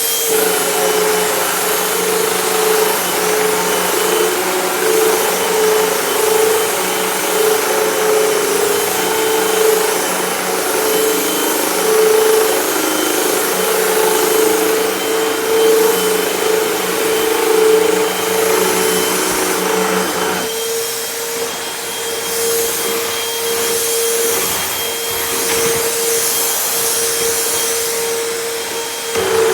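Hoover Total Home Pet vacuum cleaner running at full power: a loud, steady motor whine with a high-pitched tone over it. About twenty seconds in, the lower hum drops away while the whine carries on.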